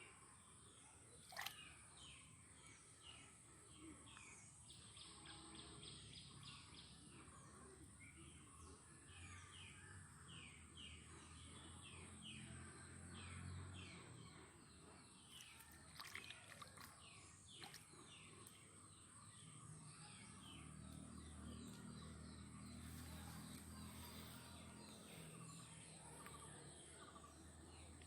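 Faint outdoor ambience of birds giving short falling chirps, one or two a second, over a steady high-pitched tone, with a faint low rumble coming and going twice.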